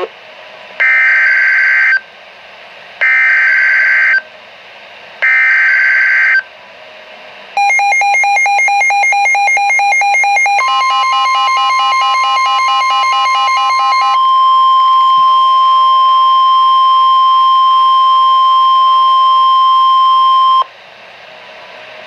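EAS alert tones from a Midland S.A.M.E. weather radio's speaker: three short bursts of warbling SAME digital header data, then a few seconds of pulsing electronic beeping, then the steady 1050 Hz NOAA Weather Radio warning alarm tone for about ten seconds, cutting off sharply. The tones mark the start of a warning broadcast, here a severe thunderstorm warning.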